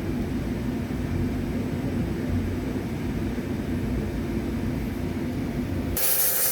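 A steady low mechanical rumble from a running machine. About six seconds in it is abruptly replaced by a loud, high-pitched hiss.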